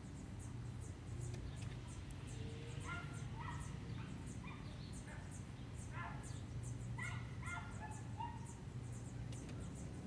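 Outdoor ambience: a high, thin chirping repeats a few times a second over a low steady hum. A run of short, mid-pitched yelping calls comes in the middle.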